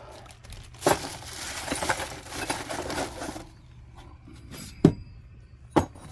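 Old metal car parts being rummaged in a box. There is a sharp clink about a second in, then a couple of seconds of rustling and clattering, and two sharp knocks near the end.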